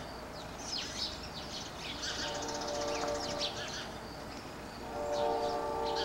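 Backyard songbirds chirping and twittering in quick, high calls throughout. A long steady chord of several tones sounds from about two to four seconds in, and again from about five seconds in, growing louder.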